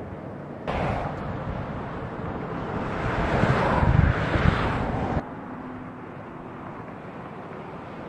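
Rushing vehicle noise that comes in suddenly about a second in, swells louder, and cuts off abruptly about five seconds in, over a steady background hiss.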